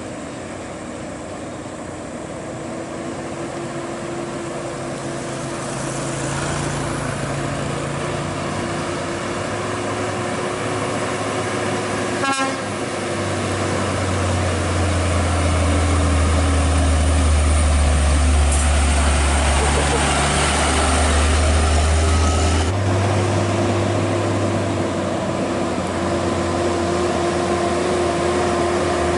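Heavily loaded diesel trucks, a Hino 500 and then a Scania, labouring up a grade. The low engine drone grows louder as they come closer and is loudest from about halfway to three quarters through, where the engine note changes abruptly.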